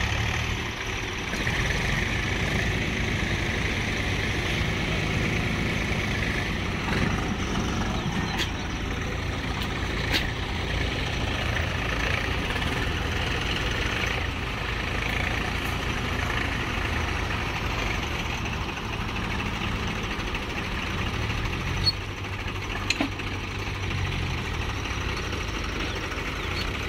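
Swaraj tractor diesel engines running under load, pulling sand-loaded trailers through wet sand. The engine note climbs and drops near the end, and a sharp click stands out just before that.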